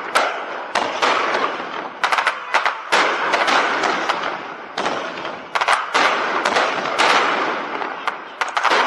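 Fireworks shells bursting in a rapid series of sharp bangs, several coming in quick clusters, over a continuous crackling hiss from the display.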